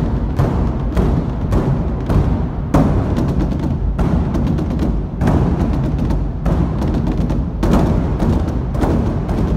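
Large Chinese barrel drums with hide heads, several beaten together with wooden sticks in a rapid, continuous drumming performance, dense low booms with no pause.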